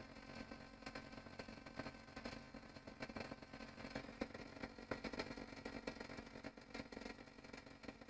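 Porter-Cable 6-gallon pancake air compressor's motor and pump running steadily, building tank pressure toward 150 psi. Its faulty pressure switch is not cutting the motor off at the set point.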